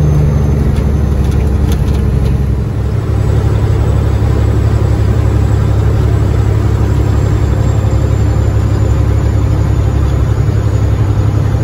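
Cat 3406E straight-six diesel of a Freightliner FLD120 semi truck running steadily at road speed, with engine drone and road noise heard inside the cab. The engine note dips briefly about three seconds in and then carries on lower and steady.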